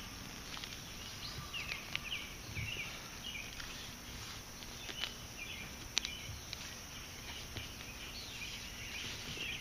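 A hand digging and scraping loose soil out of a small hole: faint scuffing with a few sharp clicks. Birds chirp in the background.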